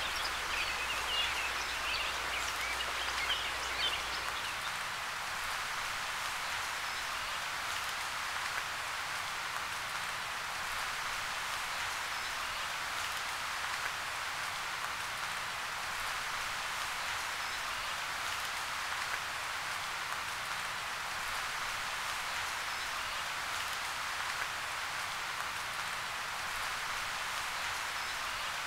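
A steady, even hiss of outdoor ambient noise that sounds like rain, with a few faint high ticks in the first few seconds.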